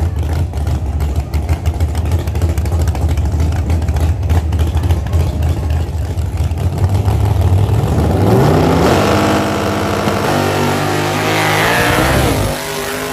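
Drag racing car engines running at a lumpy idle, then about eight seconds in revving hard and accelerating, the engine pitch climbing and holding before it drops off near the end.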